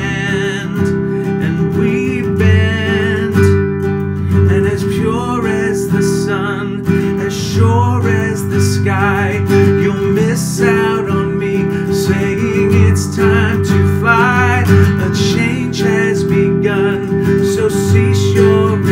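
A man singing, accompanying himself on a strummed acoustic guitar, his voice wavering on held notes.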